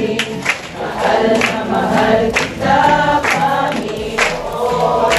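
A congregation of mixed voices singing a worship song together.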